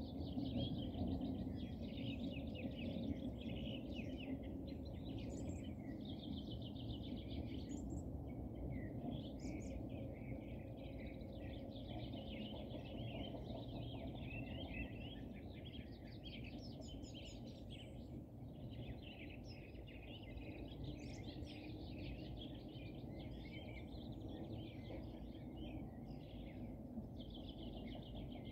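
Several small birds singing and chirping at once, their trills and short calls overlapping without a break, over a steady low rumble.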